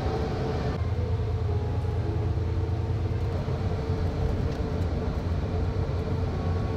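A tour coach driving at motorway speed, heard from inside the cabin: a steady low rumble of engine and tyres on the road with a faint constant whine above it.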